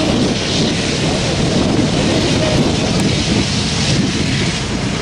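Steady rushing rumble of jet airliners taxiing at low thrust, the four-engined Lufthansa Airbus A380 among them, blended with road traffic.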